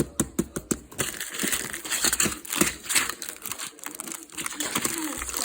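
Candy wrappers crinkling and rustling as a pile of Halloween candy is handled and sorted, after a quick run of small clicks at the start.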